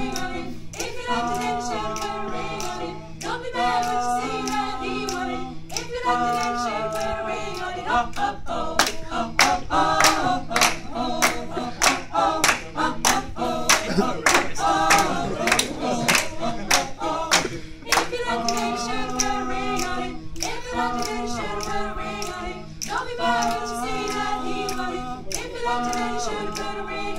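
A mixed group of male and female voices singing a song a cappella in harmony, with sustained chords. Through the middle stretch, rhythmic clapping joins the singing.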